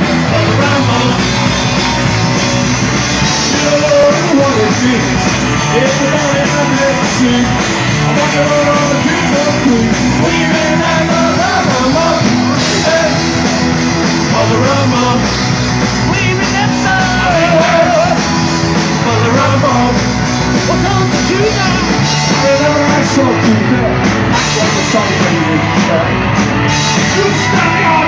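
Rock band playing live and loud: a man singing over electric guitar and drums.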